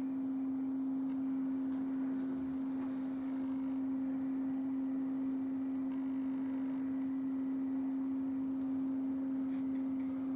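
A steady hum at one pitch, holding unchanged throughout, with a few faint ticks near the end.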